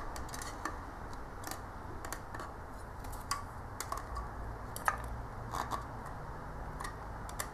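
Scattered small clicks and taps of plastic and metal as a 3.5-inch hard drive is handled and worked out of its plastic enclosure frame, over a low steady hum.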